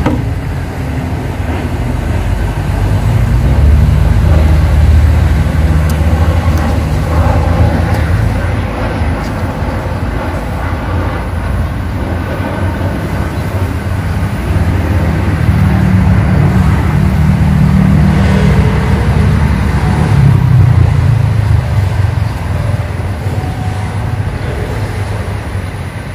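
Loud low rumble that swells about four seconds in and again past the middle, then eases.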